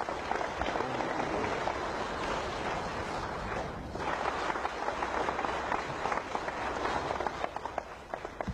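Audience applauding, a dense patter of many hands clapping that dips briefly about halfway through and thins out near the end.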